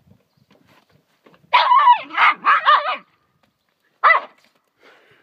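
Small wiry-coated dog barking at a dead fish on the ground: a quick run of three barks, then a single bark a second later.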